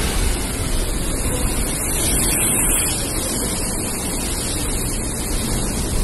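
Storm-force gale and heavy breaking sea: a steady roar of wind and surf.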